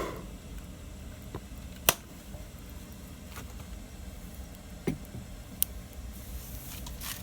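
Wood fire crackling: a few sharp, scattered pops, the loudest about two seconds in and another near six seconds, over a steady low rumble.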